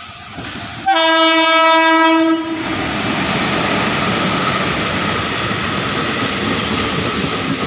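About a second in, the air horn of an Indian Railways WAP4 electric locomotive sounds one loud steady blast lasting about a second and a half. It is followed by the steady rush of the express train's wheels and coaches passing close by at speed.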